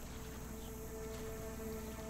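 Quiet background music: a few soft held notes over a light hiss, with a faint chirp about halfway through.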